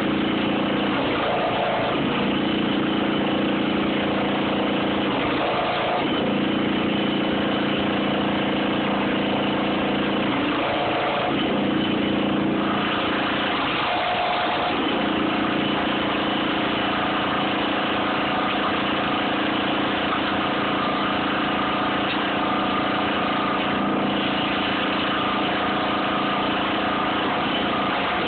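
An engine running steadily at idle, its hum changing briefly about a second in, around five seconds in, and twice between eleven and fifteen seconds in.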